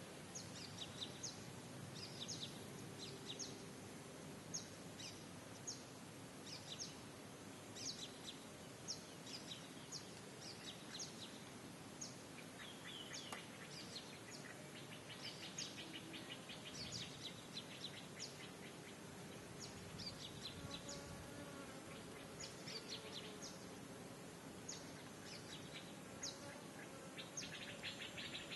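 Faint ambience of small birds chirping in short, sharp repeated calls, with a buzzy trill about halfway through and again near the end.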